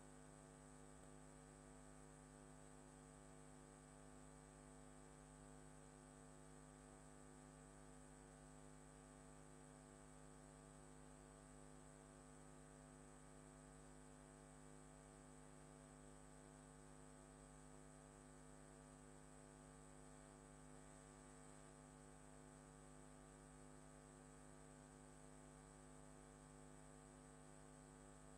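Near silence: a faint, steady electrical hum that holds one unchanging set of tones throughout.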